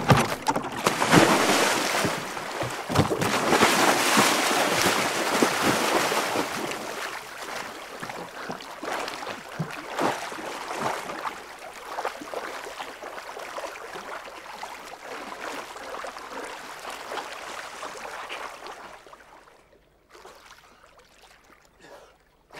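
A person plunging into water from a rowboat, then water splashing and churning around the boat. The splashing is loudest over the first few seconds and gradually dies away.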